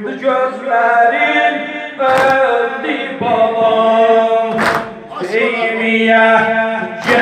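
A male eulogist sings a Muharram mourning lament (noha) over a microphone, with a group of men chanting along. The mourners strike their chests in unison about every two and a half seconds: three loud, sharp slaps of chest-beating (sineh-zani) cut through the singing.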